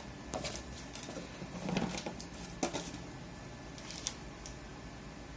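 Handling noises: a few light clicks and knocks of hard objects being picked up and moved, with a softer thump a little under two seconds in.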